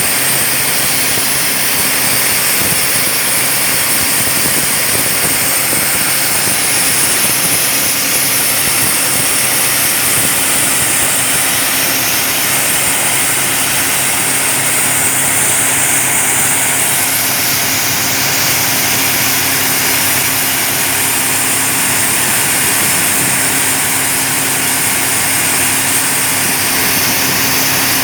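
Atlas Copco RD20 III drill rig running steadily at constant speed, a loud even machine noise with a high hiss over it.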